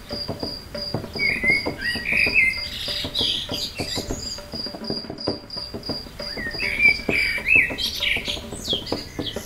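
Birds chirping in short sweeping calls, over an insect's high chirp repeating about three times a second that stops about seven seconds in, with faint quick clicks and rattles underneath.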